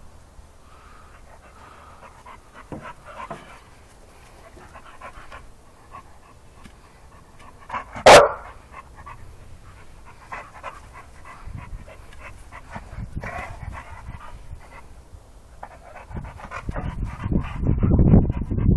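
A bully-type dog panting with its tongue out, with one loud, sharp bark about eight seconds in. The panting grows louder and rougher near the end.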